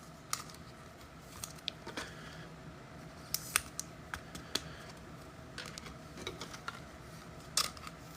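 Faint, irregular light clicks and taps, several a second at times, with a couple of sharper ones about three and a half and seven and a half seconds in, over a low steady background hum.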